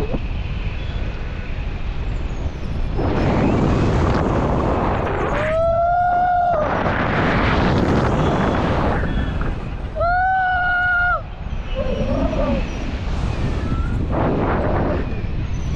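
Wind buffeting the microphone in flight, a continuous rumbling rush. Two long, held cries of about a second each cut through it, about six and ten seconds in.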